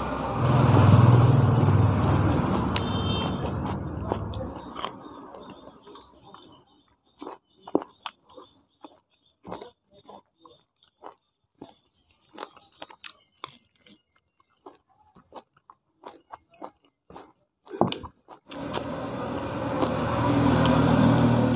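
Close-miked chewing and wet mouth clicks of a person eating pork curry and rice by hand, heard as many short, sharp clicks. A steady low rumbling background noise fills the first few seconds, cuts out, and returns near the end.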